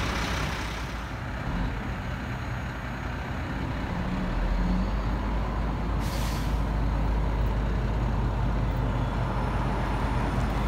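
Heavy Mack wrecker tow truck running as it pulls past under load, towing a fire engine, its rumble growing louder about four seconds in. A short hiss of air brakes comes about six seconds in.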